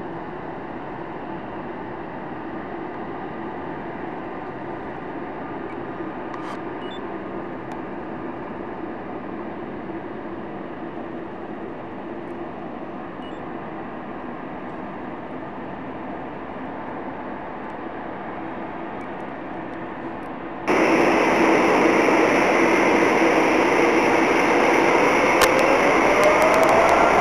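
Jet airliner engines running with a steady, even noise and a faint low hum. About two-thirds of the way through, the sound jumps abruptly to much louder, brighter jet noise, with a whine rising in pitch near the end.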